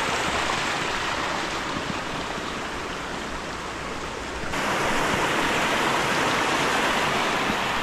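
A small woodland creek rushing over rocks, a steady wash of running water. About four and a half seconds in it turns louder and brighter, close beside a small cascade.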